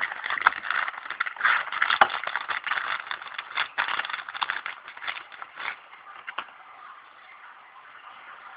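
Packaging rustling and crinkling with many small clicks and scrapes as camera accessories are unpacked by hand, dying away after about six seconds.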